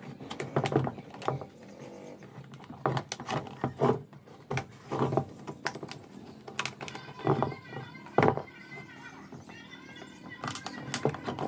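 Irregular sharp clicks, snaps and knocks from a small hand tool trimming and working the stiff fiberglass flange of a baluster mould.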